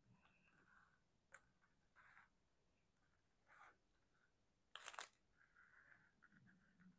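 Near silence with faint clicks and rustles of diamond-painted butterfly pendants being shifted and laid down on a flat surface by hand; the loudest is a brief rustle about five seconds in.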